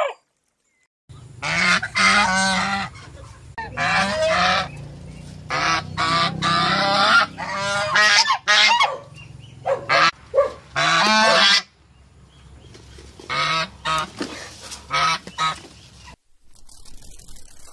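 Waterfowl giving repeated loud honking calls in bouts, with a short pause about two-thirds of the way through; the calls stop a couple of seconds before the end.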